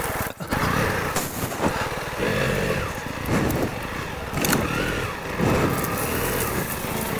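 Honda CRF300 Rally's single-cylinder four-stroke engine pulling at low speed on a rough dirt trail, its revs rising and falling again and again, with scattered knocks and rattles.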